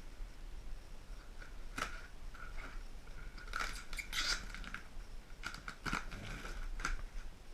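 Cardboard shipping box being opened by hand: an irregular run of scraping, crackling and clicking from the cardboard and its tape, busiest in the middle and latter part.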